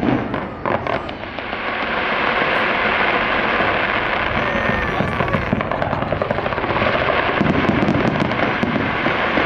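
Fireworks: several sharp bangs in the first second, then a dense, continuous rush of noise at a steady level.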